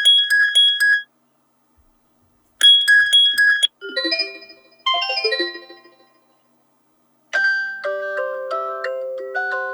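Preset ringtones of a Vodafone Smart Platinum 7 phone playing in succession. First comes a quick pulsing electronic beep pattern, which plays twice with a pause between. Next is a short descending run of chime notes. After a second of quiet, a new ringtone begins about seven seconds in: a slower electronic chime melody with held notes.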